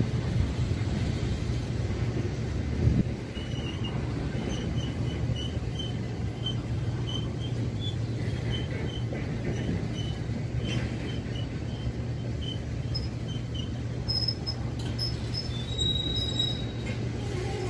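Empty rail-carrying flatcars of a steel train rolling slowly past: a steady low rumble of wheels on rail, with a louder knock about three seconds in. Short high wheel squeaks repeat about twice a second through the middle, and there is a brief high squeal near the end.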